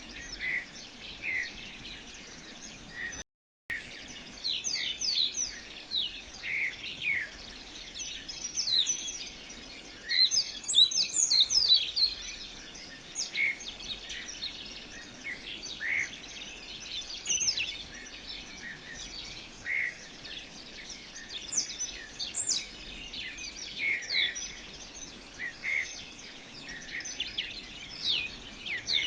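Many birds chirping and calling in quick, short notes over a steady background hiss. The chirping is busiest and loudest about a third of the way through, and there is a brief cut to silence about three seconds in.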